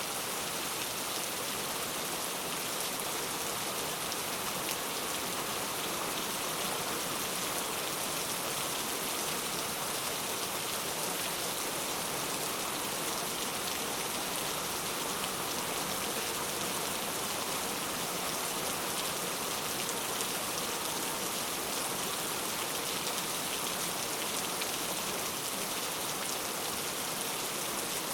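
Heavy rain falling steadily, an even, unbroken hiss of many drops with no thunder or breaks.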